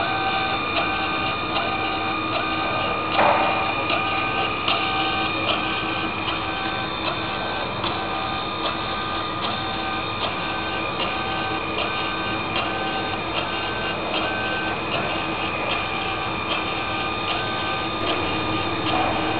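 Motorised rail welding carriage running along its track: a steady electric-motor whine with a short pulse repeating a little faster than once a second. There is a louder click about three seconds in.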